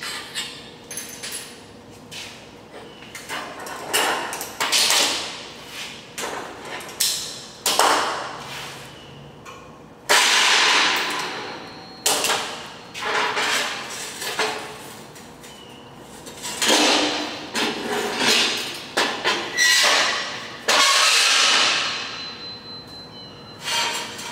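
Steel slide vents being set onto pins and slid across a steel plate on a steel table: a dozen or so irregular metal clanks and scrapes, some ringing briefly.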